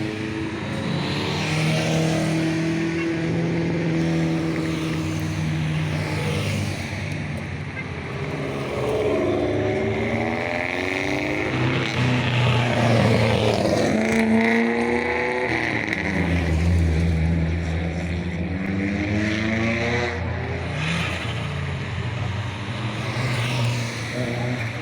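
Rally car engines revving hard under acceleration, the engine pitch climbing and dropping several times as the cars work through the gears.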